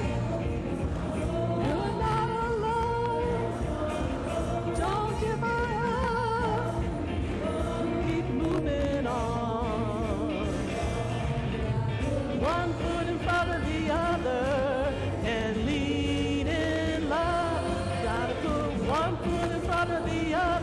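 Church praise band playing a gospel-style song, with a singer's voice carrying the melody with vibrato over a steady keyboard and bass accompaniment.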